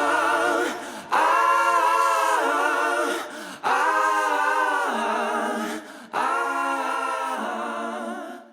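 Background music: layered voices singing sustained chords with no instruments, in several long phrases that each swell and then fall away, ending abruptly near the end.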